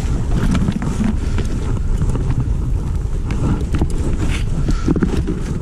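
Wind buffeting the microphone: a steady low rumble with scattered short clicks.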